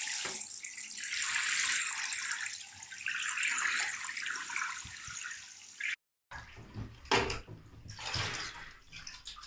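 Running water from a bathtub hand shower pouring into a tray of photographic prints being washed, a steady splashing hiss. It cuts off about six seconds in, followed by a few soft knocks of trays and bottle being handled.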